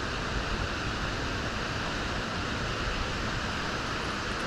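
Steady rushing noise with a fluttering low rumble underneath, no distinct events.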